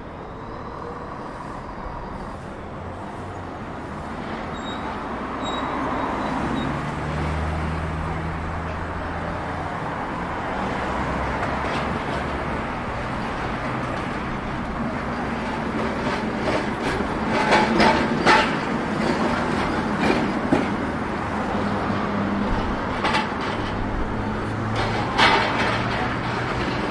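City street traffic: engines of passing cars and buses over a steady road noise, with a few sharp clacks in the second half.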